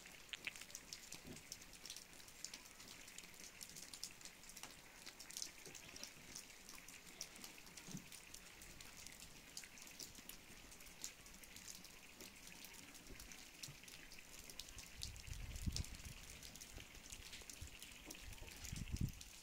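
Faint, steady patter of wet snow falling on a roof and the ground, heard as many small, quick ticks. Two low muffled rumbles come near the end.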